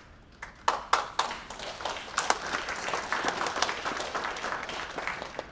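Audience applauding, dense hand claps that start about half a second in and die away near the end.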